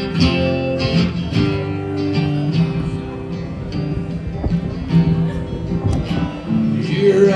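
Two acoustic guitars playing an instrumental break in a country-folk song, strummed chords with no singing.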